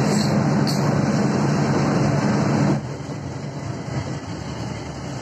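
Coach bus running at speed, heard from inside the cabin: a steady engine hum over road noise. About three seconds in it drops off sharply to a quieter road noise. Two short ticks come near the start.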